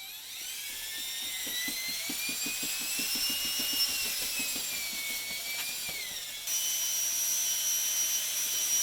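Electric screwdriver spinning a rod-and-brush dryer-vent cleaning tool inside a flexible dryer hose to scour lint off the hose walls. The whine climbs in pitch with rapid regular ticking, then falls away, and switches abruptly to a steadier, higher whine about six and a half seconds in.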